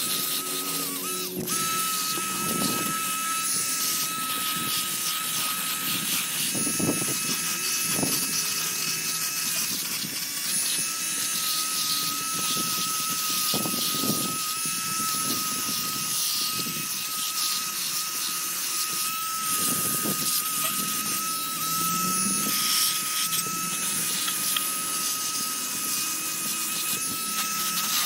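A small handheld power tool running steadily with a high whine. The whine drops out briefly about a second in and again around ten seconds in, with light handling knocks underneath.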